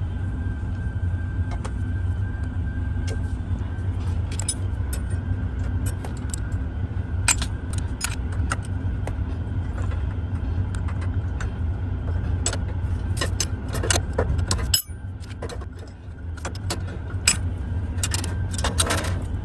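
Metal parts and hand tools clinking and tapping irregularly, over a steady low rumble. The rumble and clicks break off abruptly about fifteen seconds in, then resume.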